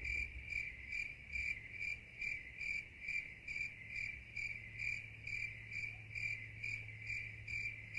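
A cricket chirping steadily, a little more than two chirps a second at one high pitch, over a faint steady low hum.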